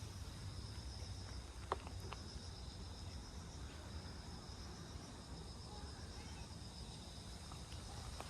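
A steady chorus of insects chirping in a fine, even pulse, over a low background rumble, with one sharp click about two seconds in.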